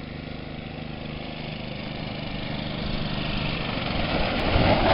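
Yamaha G2 golf cart's small single-cylinder gas engine running steadily, then getting louder and rougher from about three seconds in as it pulls harder.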